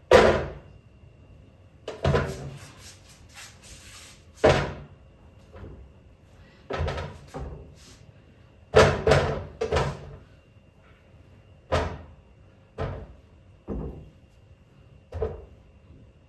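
About a dozen irregular knocks and clunks as tomatoes are set one at a time into a fridge compartment.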